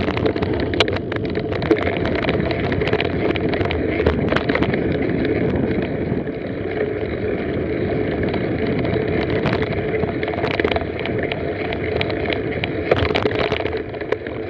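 Mountain bike ridden along a leaf-covered sandy forest trail, heard from a camera on the bike: a steady rush of tyres and moving air with frequent sharp clicks and rattles from the bike.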